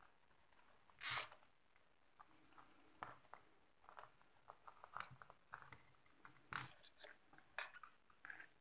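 Faint handling noise from wiring an amplifier power-supply board by hand: soft rustles and small clicks of wire leads being twisted and the board shifted on the bench, with one louder scrape about a second in.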